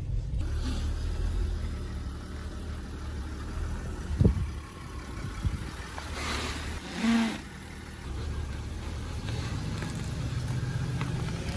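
VW Passat 3.6 V6 running and moving slowly, a steady low engine and road rumble. There is a sharp thump about four seconds in and a short pitched sound around seven seconds.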